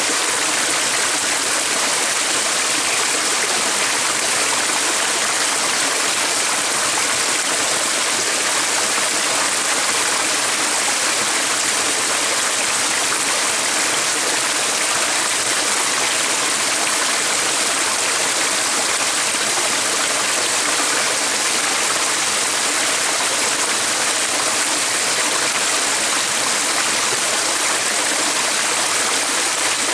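Running water of a stream, a steady, even rush that does not change.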